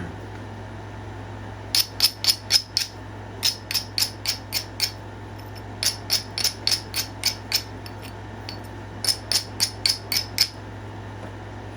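Indirect-percussion flintknapping on a Knife River flint flake: a hammer tapping a punch in four quick runs of five to nine sharp strikes, about four a second, testing how tough the stone is.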